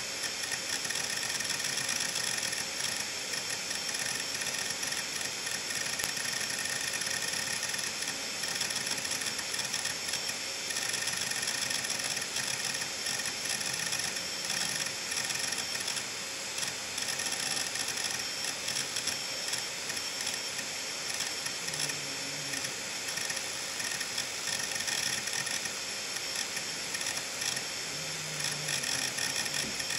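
Seagate Medalist 8630 hard drive running with its lid off: a steady whine from the spinning platter under rapid, continuous clicking and chattering from the head actuator arm seeking back and forth, as several large files are written to it at once.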